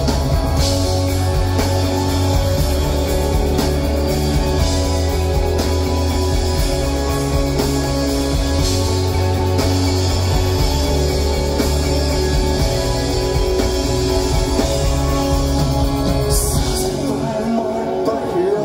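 Live pop-punk rock band playing an instrumental passage with electric guitars, bass and drums, heard from the crowd in a club. Near the end the bass and drums drop out, leaving the sustained higher guitar chords.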